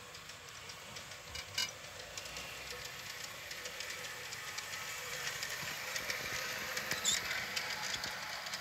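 PIKO G-scale model diesel locomotive and hopper wagons rolling along garden-railway track, the wheels making a run of quick clicks over the rails. The clicking grows louder as the train comes close.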